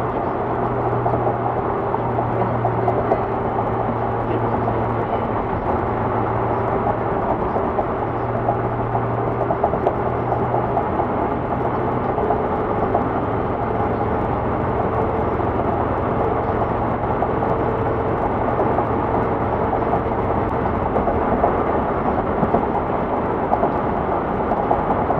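Steady road noise inside a car cruising on an expressway at highway speed: tyre and engine drone with a low hum that fades away in the second half.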